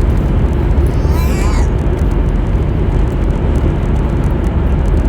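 Car road and engine noise heard from inside the cabin while driving: a steady low rumble.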